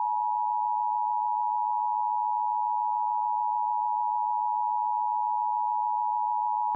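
Emergency Alert System two-tone attention signal: 853 Hz and 960 Hz sounded together as one steady, harsh dual tone that cuts off abruptly near the end. It is the alert tone that opens an EAS message, here the national test.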